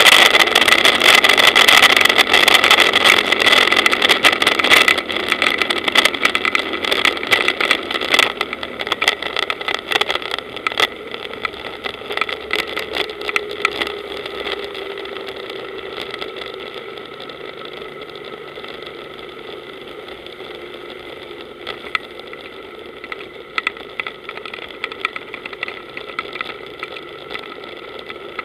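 Powerboat engine running with water and wind noise, easing off over the first fifteen seconds or so to a quieter steady run as the boat slows. Occasional sharp knocks sound through it.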